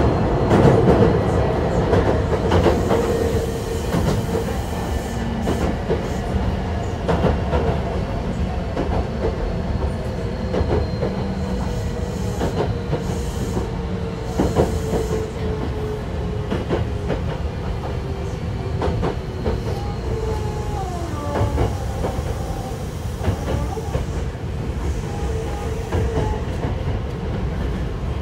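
Onboard running sound of a Hankyu 1000 series electric train with Toshiba permanent-magnet synchronous traction motors: a continuous rumble with irregular wheel clicks over the rails and a steady motor tone that is strongest in the first few seconds. A short wavering higher tone comes about two-thirds of the way through.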